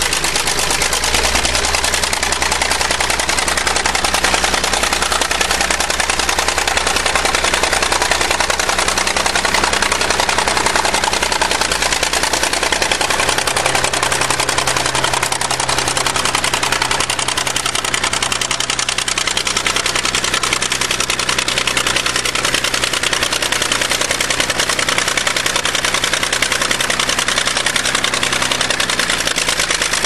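Old crawler bulldozer's diesel engine running steadily and hard as it pushes snow, its low note shifting slightly about halfway through.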